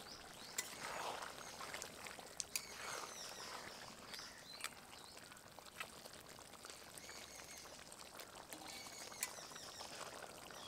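Faint bubbling of simmering curry gravy in a pan as fried stingray pieces go in, with a few sharp clicks of a utensil. Birds chirp now and then in the background.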